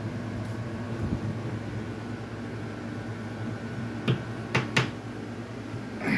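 Steady low mechanical hum, like a room fan or air conditioner, with three short clicks about four to five seconds in and another near the end.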